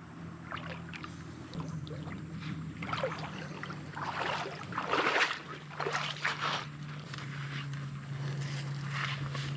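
Water sloshing and splashing in a shallow creek in a run of irregular bursts, loudest about halfway through, over a steady low hum.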